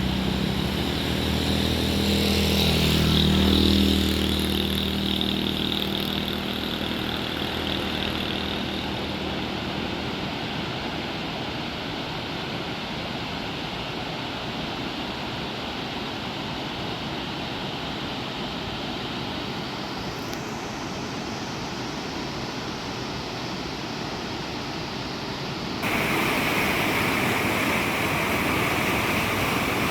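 Fast-flowing water rushing steadily, with an engine hum fading away in the first few seconds; about 26 seconds in, the rushing abruptly gets louder and hissier.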